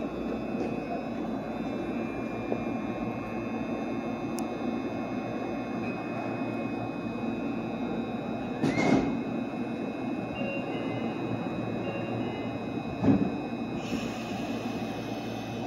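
Meitetsu electric commuter train standing at the platform, its onboard equipment humming steadily. A short sharp sound comes about nine seconds in, and the sliding doors shut with a low thump about thirteen seconds in.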